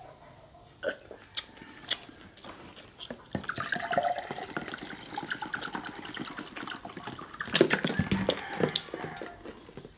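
Orange juice being poured from a pitcher into a drinking glass: a few sharp clicks, then a continuous splashing, gurgling pour for about six seconds, with louder knocks near the end.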